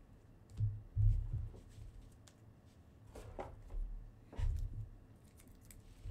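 Baseball cards in plastic holders being handled and set down on a table: light rubbing and sliding, with a few soft thumps about a second in, again after three seconds and near four and a half seconds.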